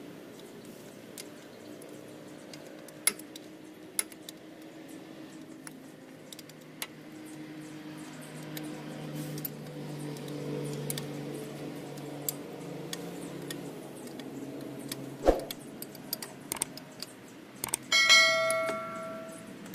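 Wrench work on the backplate bolts of a truck's steering knuckle: scattered sharp metal clicks and clinks over a low hum that swells and fades in the middle. Near the end a steel tool strikes metal once and rings with a clear tone for over a second.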